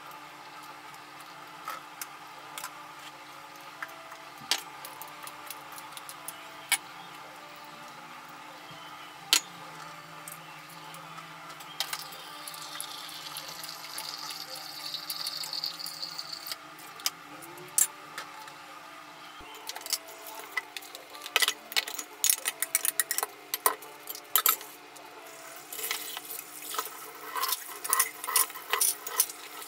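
Cut vegetable pieces dropping one by one into pans of water on a gas stove, with scattered clinks against the pans. About two-thirds of the way in, a kitchen tap starts running and a plate and dishes clatter quickly in a steel sink.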